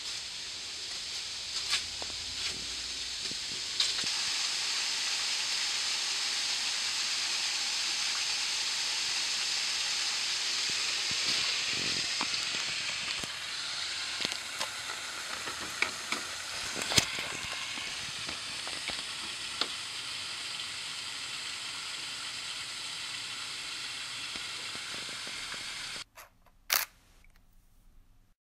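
A steady rushing hiss that swells for several seconds in the middle, with scattered light clicks and footfalls. It cuts off abruptly near the end, followed by one short knock.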